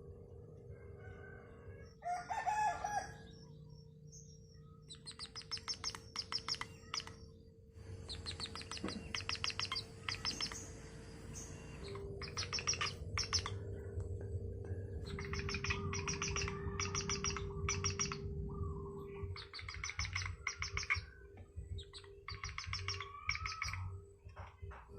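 Owl calling in repeated bouts of rapid, high-pitched trilling notes, each bout a second or two long, with short pauses between.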